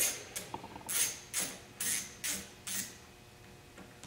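Screwdriver backing out the reservoir cover screws of a Polaris Sportsman's handlebar brake master cylinder: a short, high clicking rasp about twice a second, stopping about three seconds in.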